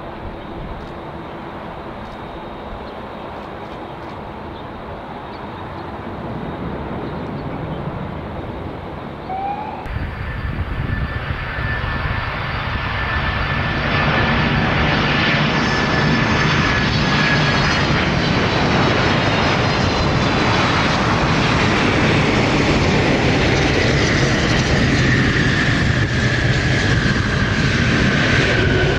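Jet aircraft engines passing close: a steady distant rumble that swells sharply about ten seconds in into a loud rush with high whining tones that slowly fall in pitch.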